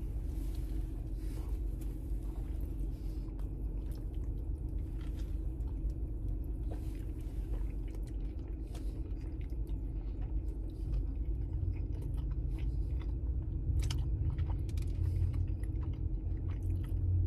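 A man chewing a mouthful of burger close to the microphone, with small wet mouth clicks, over a steady low hum.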